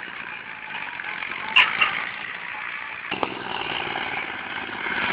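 Diesel tractor engine running, its low, even pulsing growing louder from about three seconds in, with a sharp click about a second and a half in.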